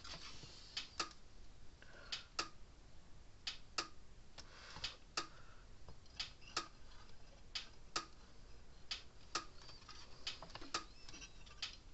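Light, sharp clicks and taps at uneven intervals, about one or two a second.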